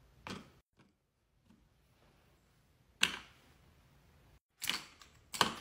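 Wooden toy salad pieces dropped into a plastic bowl: a few short knocks and clatters, the loudest about three seconds in and a quick cluster near the end.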